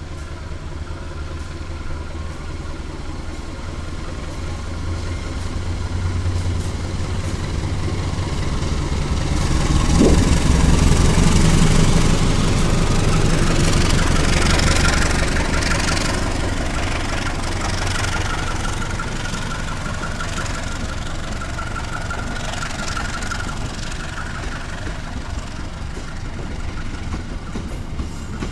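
A diesel-electric locomotive's engine rumbling as it approaches and passes, loudest about ten to twelve seconds in. Passenger coaches then roll by with wheel noise on the rails and a thin, steady high whine.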